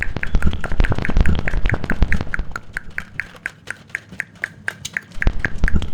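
Rapid gunfire, likely a toy gun or a gun sound effect: an even string of sharp shots about four to five a second, each with a short high beep, with low thumps underneath. The firing stops about five seconds in.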